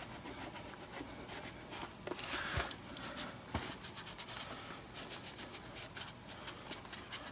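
Dry, rough leather of a baseball glove rubbed by hand where the lace passes through, a faint run of quick scuffing strokes, a little louder about two seconds in.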